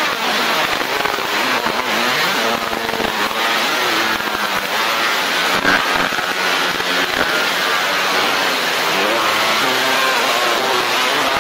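Fiber laser marking machine engraving stainless steel: a steady hiss with warbling tones that shift up and down in pitch as the beam traces the fingerprint pattern.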